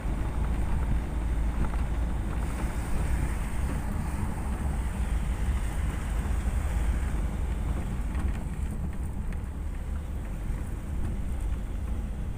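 Wind buffeting the microphone over the steady low rumble of a moving pickup truck, heard from its open cargo bed.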